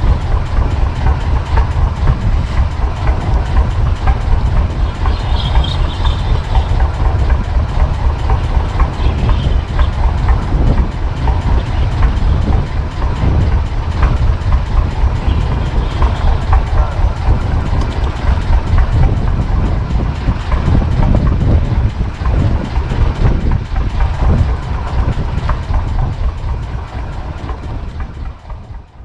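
Fishing boat's inboard engine running steadily with a fast, even low pulsing, fading out near the end.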